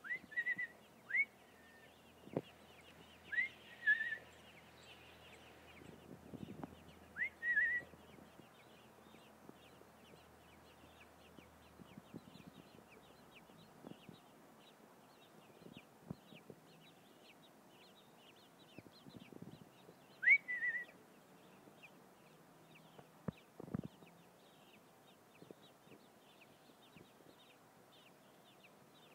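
A person whistling to robin nestlings to get them to raise their heads and beg. There are about five short phrases, each a quick rising note followed by a few short clipped notes, with a long pause partway through.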